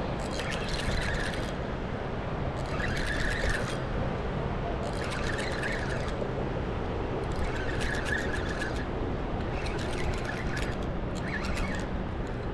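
Quantum spinning reel cranked in short spurts, about every two seconds, each a brief whirring crank, over a steady low rush of water flowing below the dam.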